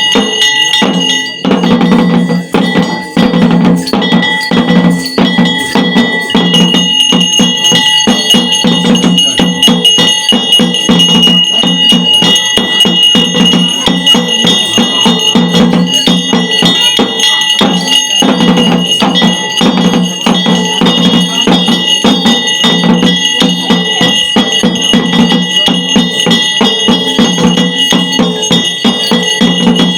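Metal bells ringing continuously, loud and clattering, over a steady low drumbeat: ritual music of bells and drums.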